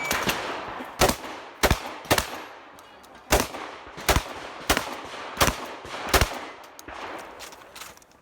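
A shot timer's start beep, then eight shotgun shots at a steady pace, mostly well under a second apart, from a Remington 870 pump-action shotgun.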